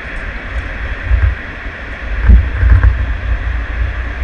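Wind buffeting the microphone in uneven gusts over the steady rush of river water.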